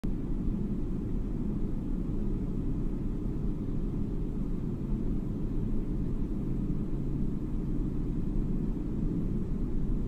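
Jet airliner cabin noise in flight: a steady, even low rumble.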